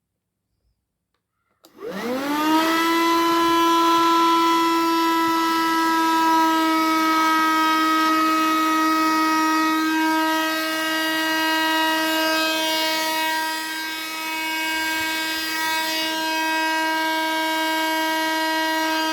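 12 V car vacuum cleaner run off a motorcycle battery, switched on a little under two seconds in: its motor spins up with a quickly rising whine, then runs at a steady high-pitched hum.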